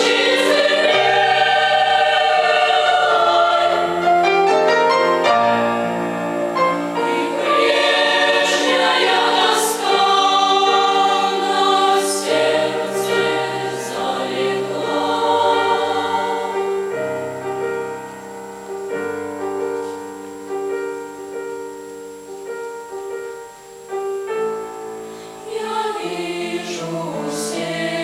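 Children's choir singing in several parts over low held notes, loud at first, dropping to a softer passage past the middle and swelling again near the end.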